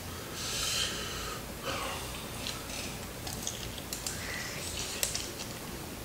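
A hissing breath or sniff through the nose, then scattered faint crackles and clicks of crispy fried chicken being handled and bitten into.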